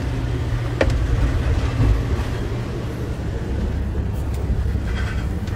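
Steady low rumble of a tour bus on the road, heard from inside the bus through a phone's microphone, with a single sharp click about a second in.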